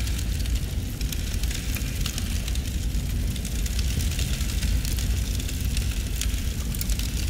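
Flames burning paper: a steady low rumble of fire with scattered crackles.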